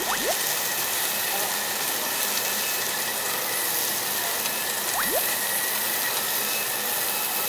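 Pork sizzling on a tabletop barbecue grill: a steady hiss. Brief rising whistle-like swoops come right at the start and again about five seconds in.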